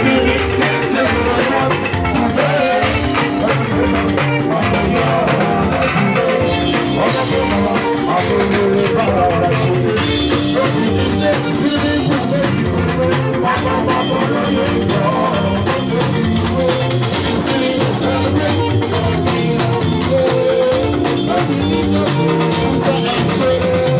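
Live band music: a male singer at the microphone over electronic keyboard, drum kit and hand percussion, playing continuously.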